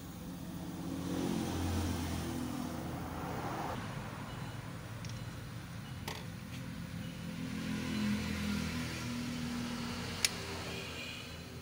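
A motor vehicle engine running, not the stripped engine being worked on, with a low hum that swells twice. Small metal parts click as they are handled, with one sharp click near the end.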